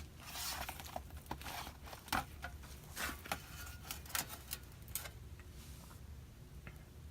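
Scattered small clicks and short scrapes as the aluminium bottom panel of a MacBook Pro A1398 is pried loose and lifted off.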